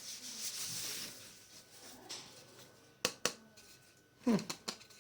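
Packaging rustling as a keyboard wrist rest is unwrapped, then two sharp clicks about three seconds in, a short falling squeak just after four seconds, and a few small clicks as the rest is handled.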